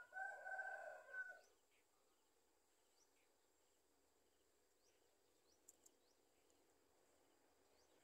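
A domestic chicken calls once at the start, a steady-pitched call about a second and a half long. Faint short high chirps of small birds come and go, with two sharp clicks near the six-second mark.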